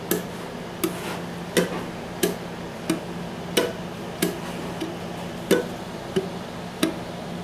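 Muted ukulele strings plucked with the fingers in a three-beat picking pattern (thumb and ring together, then middle, then index), giving short dry popping clicks about every two-thirds of a second, with every third pluck louder.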